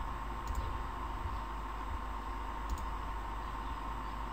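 Two faint computer mouse clicks, about two seconds apart, over a steady hiss and a thin constant hum.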